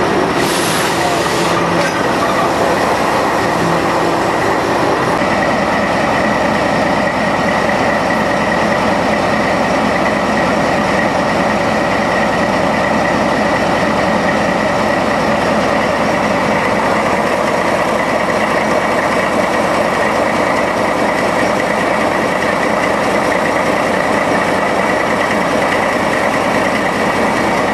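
Diesel locomotive running steadily at close range, a dense mechanical sound with a steady high whine in it. A short hiss comes near the start.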